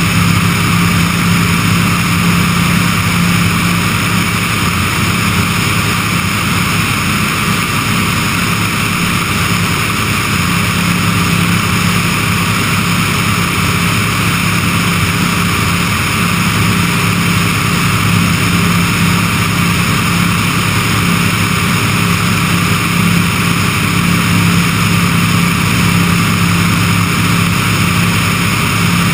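Remos light sport aircraft's engine and propeller running steadily in cruise flight, a constant hum heard from outside the cabin with steady airflow hiss over the microphone.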